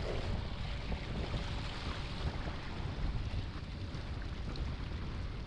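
Wind buffeting the microphone and water rushing along the hull of an inflatable boat under way on a choppy sea, with a faint steady motor hum underneath.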